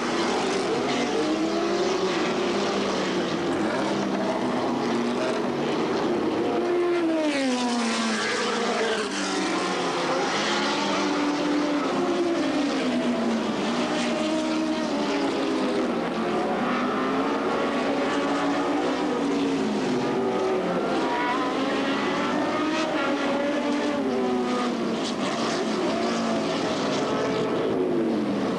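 Several historic sports-racing cars at racing speed, their engine notes overlapping and rising and falling over and over through acceleration and gear changes. Sharp drops in pitch come about seven seconds in and again near the end.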